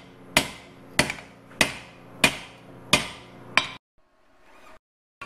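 Hand hammer striking the red-hot end of a steel pipe held in a notch of a block, forging it into a cone: six blows about two-thirds of a second apart, each ringing briefly, then the hammering stops abruptly.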